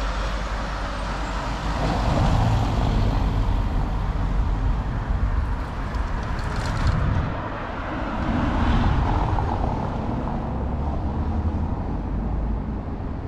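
Street traffic: cars driving by on the road, with a steady low rumble that swells twice.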